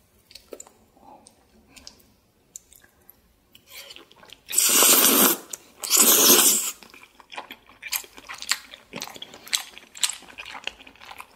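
Two loud slurps of flat glass noodles in rosé buldak sauce, about four and a half and six seconds in, followed by close-miked chewing with many small quick clicks and lip smacks.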